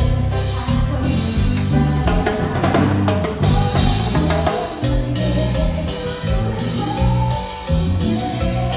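Live band playing through the stage PA at a soundcheck, with the drum kit and bass to the fore and no vocal.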